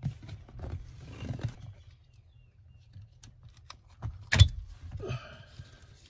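Rustling, knocking and low rumbling as the unbolted driver's seat of a Toyota Tundra is tilted back by hand, with one sharp thump about four and a half seconds in.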